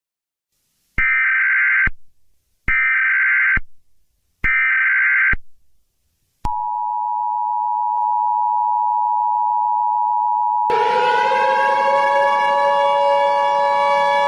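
Emergency Alert System alert: three short bursts of screechy SAME header data tones, then the steady two-tone attention signal. About four seconds before the end a louder siren-like tone with many overtones rises in and holds over it.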